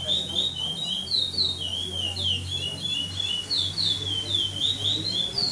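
Chestnut-bellied seed finch (curió) singing without a break: a quick string of clear, sliding whistled notes, about three or four a second, in the praia clássico song type.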